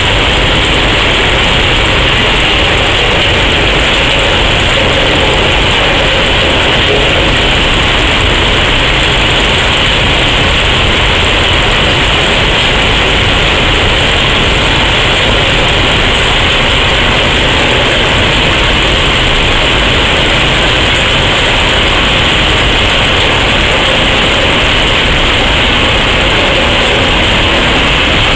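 A Plasser & Theurer track tamping machine and ballast plough working side by side on adjacent tracks. Together their diesel engines and working gear make a steady, loud mechanical din.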